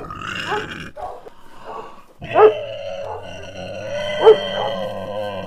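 Dogs fighting: a steady growl with sharp, loud barks, one about two seconds in and another a little past four seconds.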